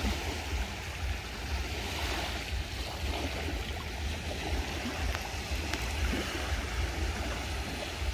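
Waves of the Mediterranean Sea washing in the shallows of a sandy beach: a steady wash of water noise with a low rumble under it.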